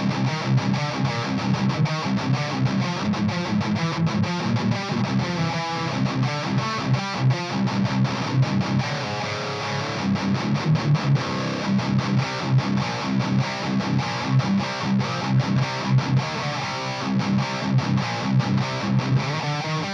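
Electric guitar in drop C tuning played through a Splawn Quickrod 100, a hot-rodded Marshall-style valve amp. The riffs sit on the low strings and have a fast, rhythmic pulse.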